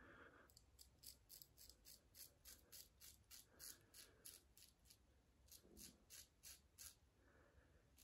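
Faint, rapid scraping of a Rockwell Model T double-edge safety razor cutting stubble through shaving lather: short strokes, about four a second, with a brief pause about five seconds in.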